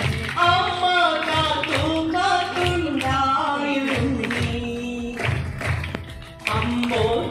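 A woman singing a song into a microphone, her voice amplified through a hall's loudspeakers, holding long, wavering notes.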